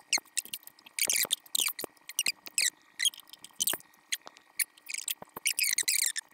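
Volkswagen Super Beetle front drum brake shoes and return springs being worked off the backing plate: a quick run of short metallic scrapes and squeaks with sharp clicks.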